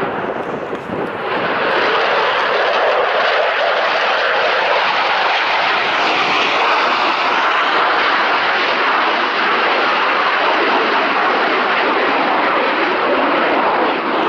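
Fighter jet making a display pass, its jet engine noise loud and steady, swelling about a second and a half in and then holding.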